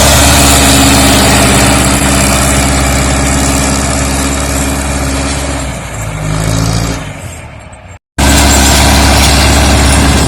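Zetor tractor's diesel engine running loud and steady under load, pulling a cultivator set to work deep. About six seconds in the engine note drops and fades, then the sound cuts off abruptly and comes straight back at full level.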